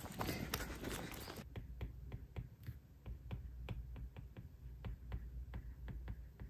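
Light, irregular clicks and taps, a few a second, with busier clicking over more background noise until a sudden change about a second and a half in.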